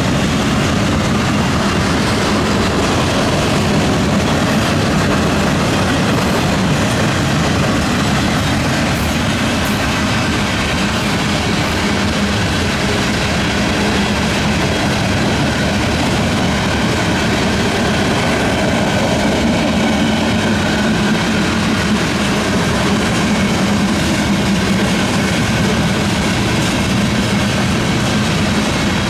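Freight train cars, covered hoppers and boxcars, rolling past on the rails: a loud, steady rumble and rattle of wheels and car bodies that does not let up.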